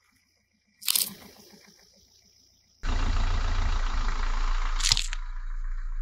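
A plastic sauce pouch bursting with a sharp pop under a car tyre about a second in, dying away. Then a steady low rumble of the car rolling on asphalt sets in suddenly, and a second sharp pop comes near the end as the tyre bursts another pouch.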